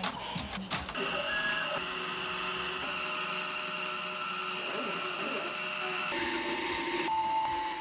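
Acetate eyeglass frame parts clicking and clattering as they are handled on a plastic tray, then, about a second in, a CNC mill's spindle cutting acetate sheet with a small end mill: a steady high whine and hiss, its tone shifting twice near the end.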